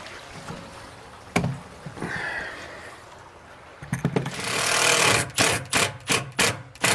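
Cordless drill countersinking a screw hole in a composite cabinet face frame: the bit cuts with a swelling whir about four seconds in, followed by a quick string of short trigger bursts, three or four a second. A single sharp knock comes earlier.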